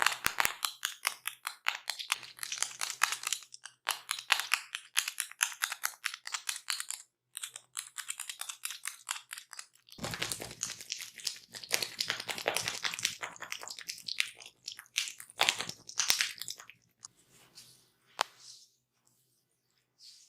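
Close-up crackling and scratching from hands rubbing against skin and hair in an ASMR ear and head treatment, a dense stream of rapid strokes. It breaks off briefly twice and thins out to a few scrapes near the end.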